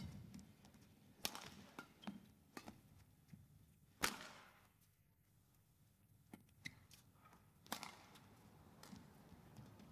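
Badminton rackets striking a shuttlecock in a rally: sharp cracks a second or so apart, the loudest about four seconds in, ringing briefly in the hall. A few lighter clicks follow near the end.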